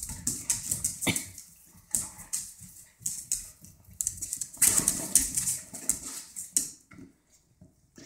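Dogs and puppies scuffling in play on a tiled floor: rapid clicking and scrabbling of claws on tile, with short dog noises mixed in, dying down about two thirds of the way through.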